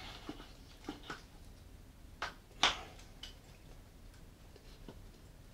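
Scattered light metallic clicks and knocks as a motorcycle front axle is worked by hand through the fork leg and wheel hub. The loudest knock comes about two and a half seconds in.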